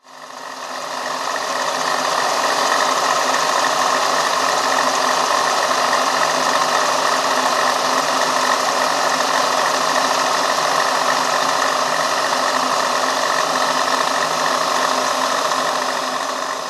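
Milling machine running as its end mill cuts an angled bevel into the bolt of a Yale deadbolt: a steady machining noise with a few fixed tones. It fades in over the first couple of seconds and tapers off near the end.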